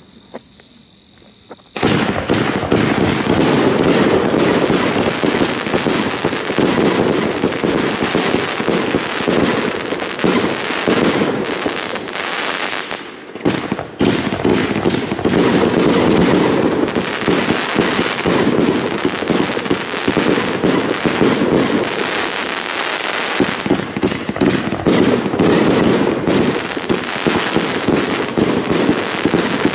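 Funke Chrys-Rain Blue 100-shot, 30 mm firework battery: a short quiet fuse burn, then about two seconds in the battery starts firing in a rapid, continuous barrage of shots and bursts, slackening briefly near the middle before carrying on.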